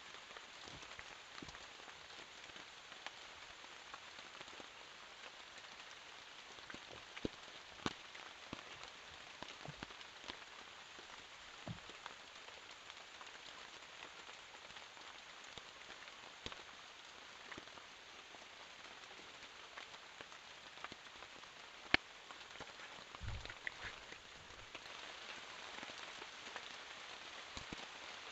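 Steady rain falling, a soft even hiss dotted with sharp clicks of individual heavier drops. A brief low thump comes a little past two-thirds of the way through.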